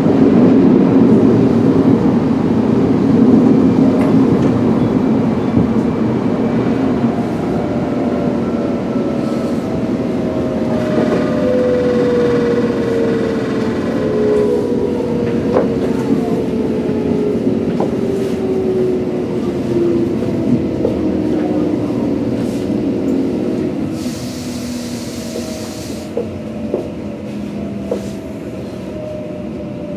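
Tokyo Metro 05N-series train's Mitsubishi VVVF inverter traction motors whining in several tones that fall slowly in pitch as the train brakes into a station, over rumbling wheel and running noise that fades as it slows. About 24 seconds in there is a short hiss lasting about two seconds.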